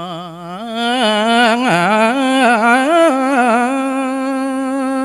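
A man singing a Balinese geguritan verse solo into a microphone: a slow, ornamented melody whose pitch wavers and turns, stepping up about a second in and then settling into one long held note in the second half.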